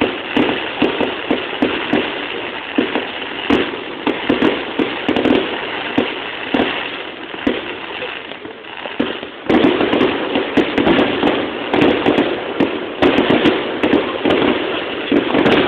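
Fireworks display: a dense, continuous run of crackling and popping bursts, which gets louder about nine and a half seconds in.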